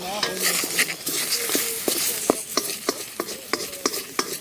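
A long wooden spatula stirs and scrapes fried potatoes and egg in a steel wok over a wood fire. Sharp knocks of the spatula on the pan come again and again over the sizzle of the frying.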